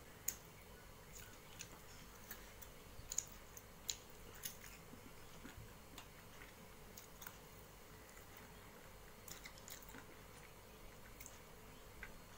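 Faint eating-by-hand sounds: fingers picking apart a piece of fish in masala gravy on a metal plate, and chewing, heard as irregular small clicks.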